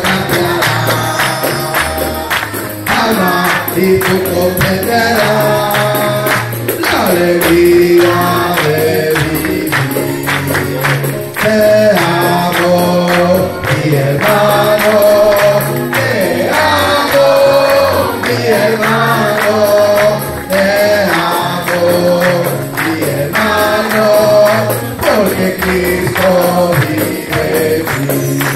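Gospel worship song: a man's voice leading the singing through a microphone and PA, with the congregation joining in over amplified backing music with a bass line and a shaken tambourine keeping the beat.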